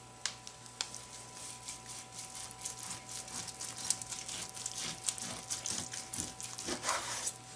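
Carving knife slicing through a prime rib roast's seasoned crust on a wooden cutting board, a dense run of small crisp crackles and scrapes as the blade saws back and forth. Two sharp clicks in the first second.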